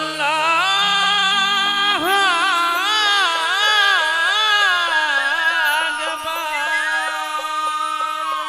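Bengali Baul folk music without words: a continuous, ornamented melody with quick wavering turns over steady held drone notes.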